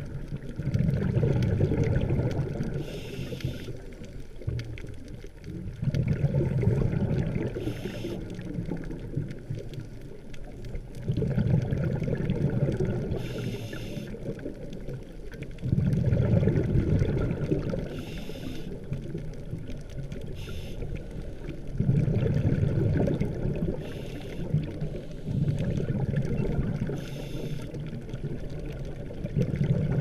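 Scuba diver's exhaled bubbles from a regulator bubbling past the camera underwater, in bursts of two to three seconds about every five seconds, the rhythm of a diver's breathing.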